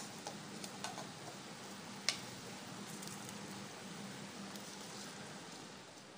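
Chicken stock with rice just added, boiling in a metal pot: a steady bubbling hiss with a faint hum beneath it. A few sharp clicks come in the first couple of seconds, the loudest about two seconds in.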